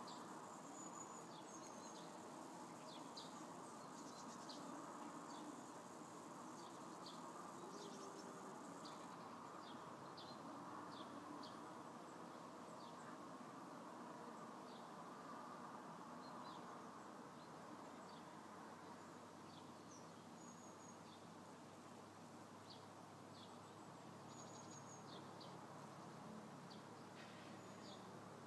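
Faint outdoor ambience: small birds give short, high chirps scattered throughout, over a faint, steady low background noise.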